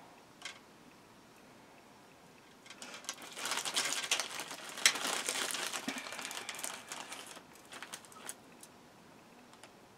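Crinkling rustle of a plastic zip-top bag of beads being handled, with small clicks of beads, lasting a few seconds from about three seconds in; a few single clicks follow near the end.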